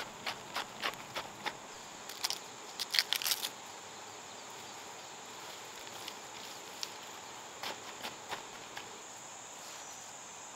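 Dry, stony soil crunching and scraping under a sandalled foot and bare hands as sugarcane cuttings are covered with earth: a quick run of crunches in the first few seconds, loudest about three seconds in, then a few scattered ones later. A steady high insect drone runs underneath.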